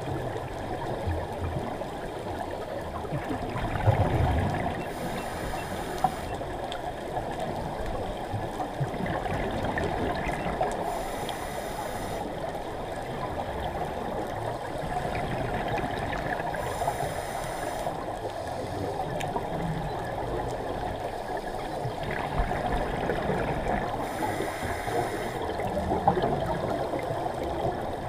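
Scuba breathing heard underwater through a camera housing: a steady watery rush, with a burst of exhaled regulator bubbles about every six seconds, four times.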